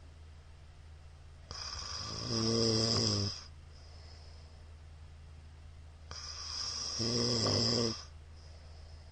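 A sleeping middle-aged man snoring loudly: two snores about four and a half seconds apart, each building from a rasp into a low, buzzing vibration before dying away.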